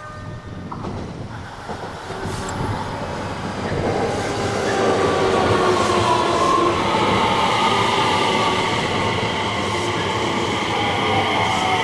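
JR West 225 series electric train approaching and running past close by. Its running noise builds over the first few seconds and then holds steady, with high whining tones that fall slightly in pitch near the end.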